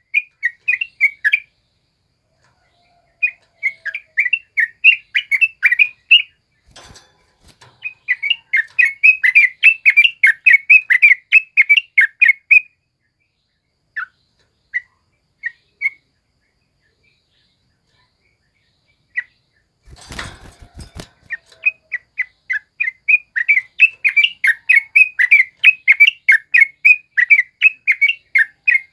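Yellow-vented bulbul (trucukan) singing in bouts of rapid chattering notes, about five or six a second, with pauses of a few seconds between bouts. The song runs on without a break through the last third. Twice there is a brief rustling knock, once about a third of the way in and once about two-thirds in.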